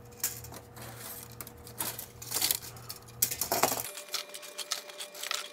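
Rapid clicking and plastic-and-metal clatter of hot-swap drive trays being pulled out of a rackmount server's drive bays and dropped onto a pile.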